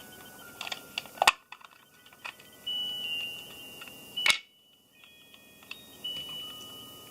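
Electronic beeping tones held at shifting pitches, with sharp clicks, the loudest about one and a half seconds and four and a half seconds in.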